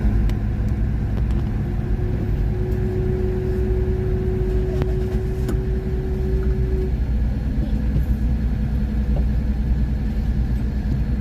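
Steady low rumble of a car idling at a standstill, heard from inside the cabin. A single steady tone sounds over it from about a second and a half in until about seven seconds in, and there are a few faint clicks.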